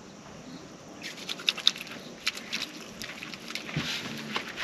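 Water splashing and pattering in short, irregular bursts that begin about a second in: a person washing outdoors with poured water instead of a shower.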